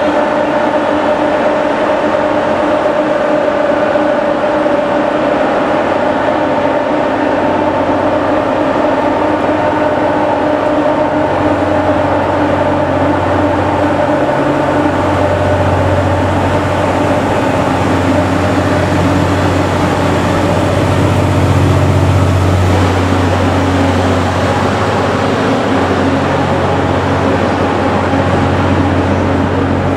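Cassiopeia sleeper train (E26-series coaches behind an EF64 electric locomotive) pulling out and rolling past at low speed, a continuous rail and wheel rumble. A humming tone is strong at first and fades over the first ten seconds or so, while a deep low rumble grows louder from about a third of the way through.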